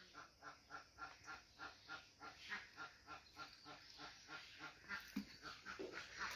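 Faint bird calls, short and evenly repeated about four times a second.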